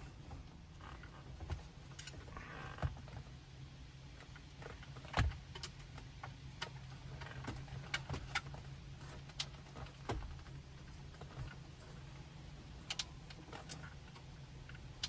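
Faint, scattered clicks and knocks as an aftermarket touchscreen head unit is worked into a car's dash opening, over a low steady hum.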